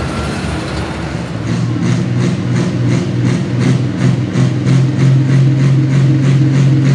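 John Deere Pro Stock pulling tractor's turbocharged diesel engine running hard at high, steady revs, growing louder. A regular pulsing, about three or four a second, runs through the upper hiss.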